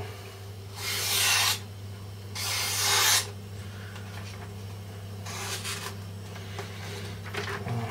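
Resharpened Boker PSK knife slicing through a sheet of paper in a sharpness test: three papery swishes of about a second each, the last one fainter, over a steady low hum.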